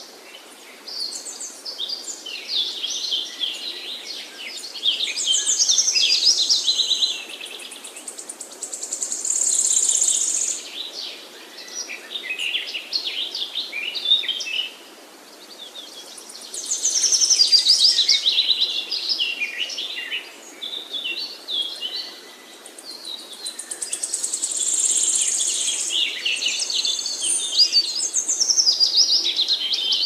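Several songbirds singing together, a busy mix of chirps and fast high trills that swell and fade every few seconds.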